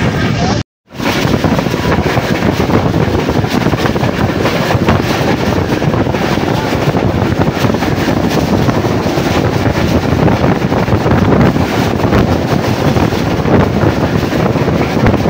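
Wind rushing over the microphone at the open door of a fast-moving passenger train, mixed with the steady running noise of its wheels on the rails; loud and steady, broken by a very brief dropout about a second in.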